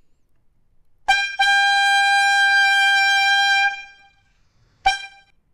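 AI-generated sound effect for the prompt "foghorn made of glass": a single high-pitched horn tone, held steady for about two and a half seconds and fading out, then a short second blast near the end. It is higher-pitched than a real foghorn.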